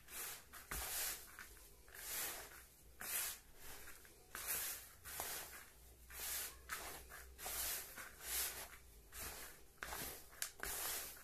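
A hand stirring and scooping a dry, crumbly fishing-bait mix of dried fish and oil cake in a plastic bowl. It makes rhythmic rustling, scraping swishes, about one a second.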